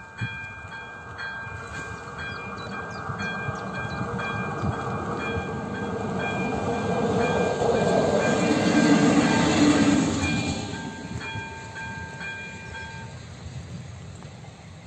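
Electronic warning bell (type 02) of an AŽD 97 level crossing ringing in an even, repeating pattern while a diesel railcar runs over the crossing. The train's engine and wheel noise swell to the loudest point about two-thirds of the way through, then fade. The bell cuts off near the end, as the crossing clears after the train has passed.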